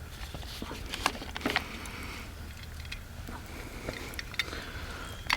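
Light clicks, taps and small knocks of camp cooking kit being handled, irregular and a few louder than the rest, over a low steady outdoor rumble.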